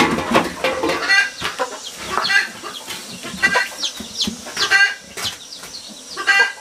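Chickens clucking, a short pitched call every second or so. A few sharp knocks and scrapes from handling pots and a bucket.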